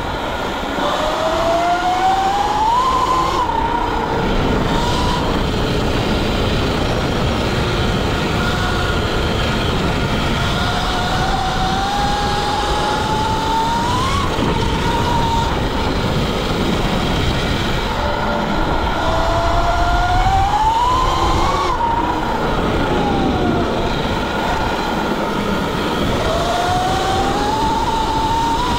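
Sur-Ron electric dirt bike under way, its electric motor whine rising in pitch four times as the rider accelerates, over a steady rush of wind and tyre noise.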